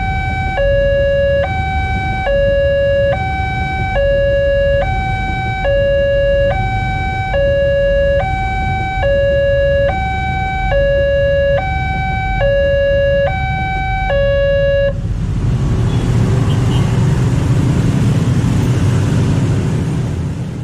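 Electronic warning alarm of a railway level crossing, alternating a high and a low tone about every three quarters of a second, over the rumble of a passing KRL commuter train and waiting traffic. About 15 seconds in the alarm stops, signalling that the train has cleared, and a steady rumble of motorbikes and traffic follows as the crossing reopens.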